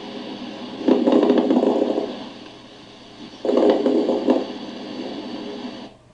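Lung sounds recorded through a stethoscope: breathing with crackles (rales), soft, brief, discontinuous crackling over the breath sound, an abnormal finding in the lung bases that does not clear with coughing. Two louder breaths come about a second in and about three and a half seconds in, and the sound cuts off suddenly near the end.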